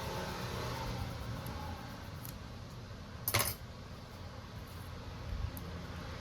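One sharp clink of a small hard object, about three seconds in, with a couple of faint clicks before and after, over a steady low hum.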